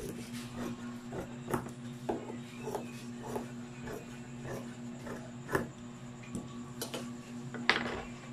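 Large steel tailor's shears cutting through fabric, a short snip about every half second. Near the end the shears are set down on the table with a louder clack. A steady low hum underneath.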